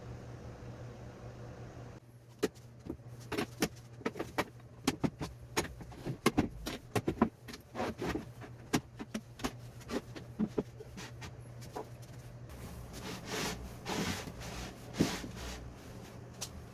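Irregular light knocks and clicks, sometimes several a second, over a steady low hum, with a few short scraping sounds near the end.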